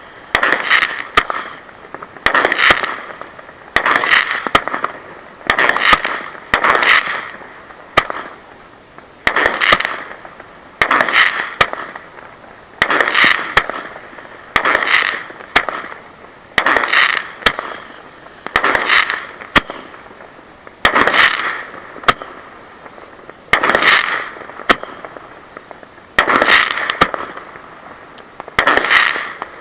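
Weco Casa Fantastica firework battery firing shot after shot, recorded from right beside it. There are about sixteen sharp reports, one every one to three seconds, each trailing off within about a second.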